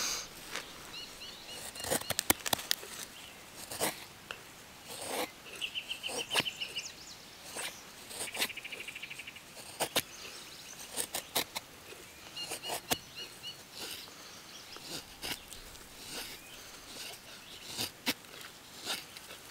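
Carbon-steel blade of an LT Wright Native Survival Knife shaving curls off a dry stick to make a feather stick: irregular short, crisp scraping strokes, sometimes two or three in quick succession. An insect trills briefly several times behind it.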